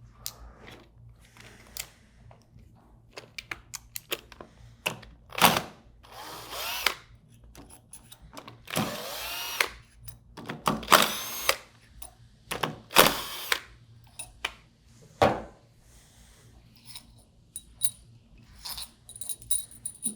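Cordless power driver spinning in several short bursts, speeding up and slowing with each one, as it backs out the four seal-housing bolts on a Waukesha 200 Series centrifugal pump, with light metal clinks between the bursts.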